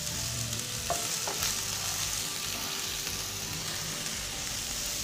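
Broccoli, cauliflower and carrot sizzling in hot oil in a frying pan as a spatula stirs them, with a couple of sharp knocks about a second in.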